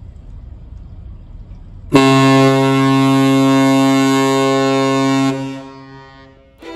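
A low steady rumble, then about two seconds in a ship's horn sounds one long, deep, loud blast of about three seconds that fades away.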